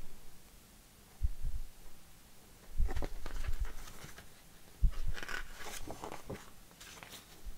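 Handling noise: paper rustling, as of a booklet's pages being turned, broken by a few soft low thumps of things being moved on a table.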